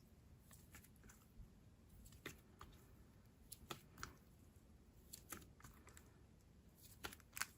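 Faint, scattered sticky clicks of a clay-and-clear slime being squished and stretched by hand, roughly one or two a second, over quiet room tone.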